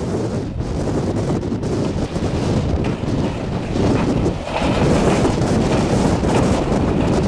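Storm gusts buffeting the microphone: a loud, fluttering wind roar, gusting harder about five seconds in.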